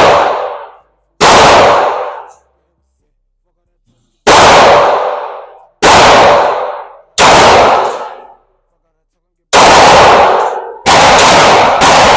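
Glock 45 9mm pistol firing about eight single shots at an uneven pace, each followed by a long echoing tail. The shots come faster near the end, with two in quick succession.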